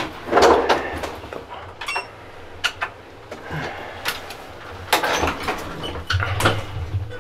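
A hotel passenger elevator running, with a low steady hum that grows stronger near the end, mixed with scattered clicks and short rustling noises close to the microphone.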